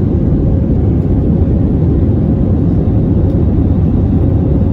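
Steady, loud cabin noise of an Airbus A320neo in flight: engine and airflow rumble with most of its weight low down, and a faint steady hum above it.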